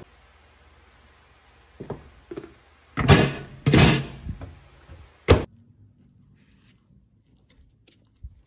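Handling a microwave oven: a faint low hum, a couple of clicks, two loud noisy scraping sounds about three and four seconds in, and a single sharp knock a little after five seconds, like the door being shut.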